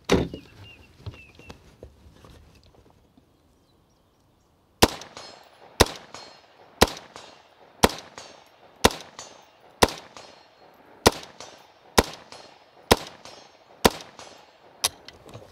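A 7.62x39 AR-15 rifle fired semi-automatically, eleven shots at an even pace of about one a second, starting about five seconds in, after a brief rattle of the magazine locking in. The steady cadence is the rifle feeding and cycling from an aluminum AK magazine without a stoppage.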